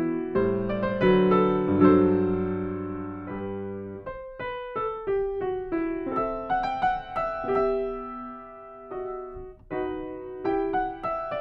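Solo piano playing a slow, gentle piece. There are full chords with low bass notes for the first few seconds, then lighter single melody notes over soft chords.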